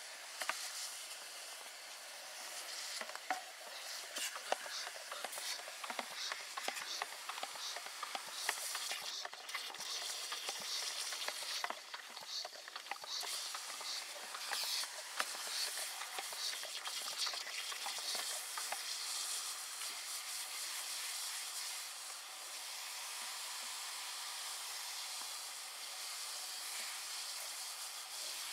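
Brush whisking water, foaming agent and crushed ore in a plastic bucket: a continuous fizzing hiss with fine crackling of froth bubbles and small scrapes of the brush. This is the frothing stage of froth flotation, where air whipped into the slurry floats the gold-bearing sulphide grains.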